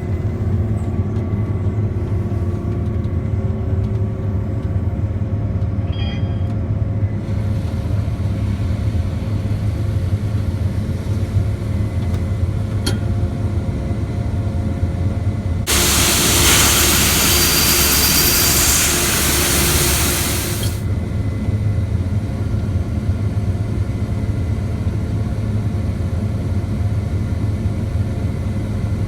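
Case IH 8230 combine running steadily while harvesting corn: a low, even drone with a constant hum. About halfway through, a loud hiss rises for about five seconds, then cuts off.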